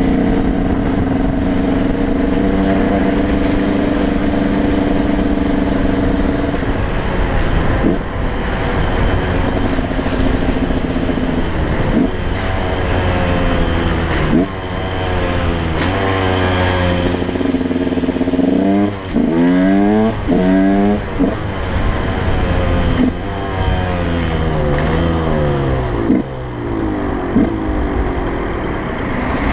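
KTM 125 EXC two-stroke single-cylinder engine under way: a steady cruising note for the first several seconds, then the revs rise and drop several times in the middle, easing back to a lower, varying note near the end.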